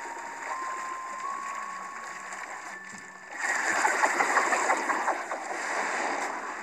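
Cartoon water sound effect: a high held tone steps up in pitch a few times, then, about three and a half seconds in, a loud rush of churning, splashing water as a giant spiralling column of water surges up.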